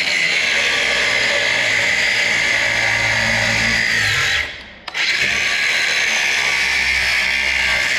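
Cordless Hart angle grinder with a cutoff wheel cutting through the huck fasteners on a rusted steel gear strip of a hopper trailer door. It runs steadily, with its battery a hair low, stops for a moment a little over four seconds in, then bites in again.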